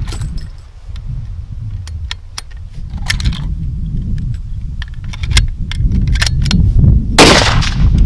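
A single .308 rifle shot from a Remington 5R bolt-action rifle about seven seconds in, over steady low wind rumble on the microphone.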